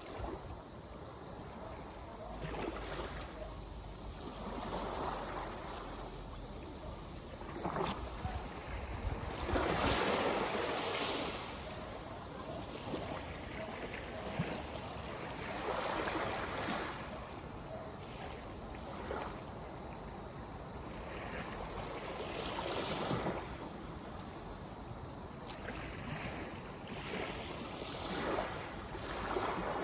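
Sea waves breaking and washing up the shore at the water's edge, a new wash swelling and fading every few seconds, the biggest about ten seconds in.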